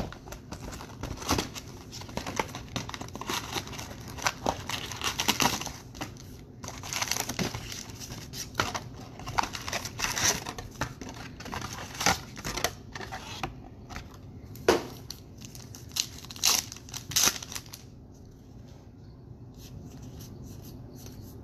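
Trading card packs being opened by hand: wrappers crinkling and tearing in a quick run of crackles and rips, with cards handled. It thins out and gets quieter near the end.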